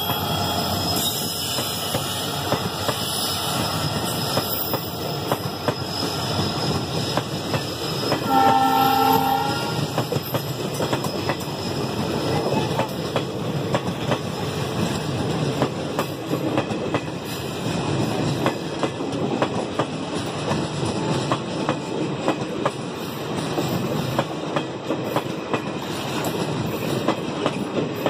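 Coaches of a diesel-hauled passenger train rolling past at speed, their wheels clattering steadily over the rail joints. A train horn sounds once, about eight seconds in, for a second or so.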